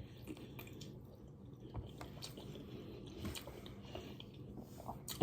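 Faint chewing of food, with small scattered mouth clicks.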